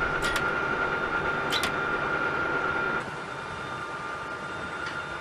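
Steady high machine whine over a noisy hum of airfield equipment, with a few sharp metallic clicks as an aircraft rocket pod is handled. The sound drops quieter about three seconds in.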